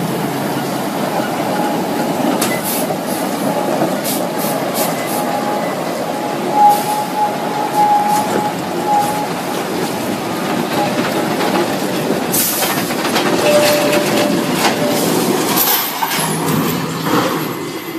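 Heavy-haul truck and loaded trailer running over rough ground: a loud steady rumble with scattered knocks and a thin squealing tone that comes and goes in the first half.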